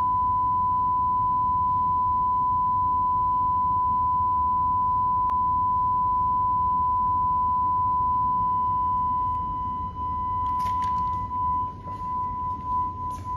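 A steady 1 kHz sine test tone, the signal played for measuring a sound-isolation booth's noise reduction. Toward the end its level wavers, and a few short clicks and knocks come in.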